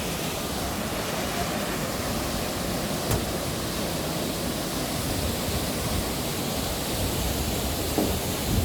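Waterfall: a steady rush of falling water, with one brief click about three seconds in.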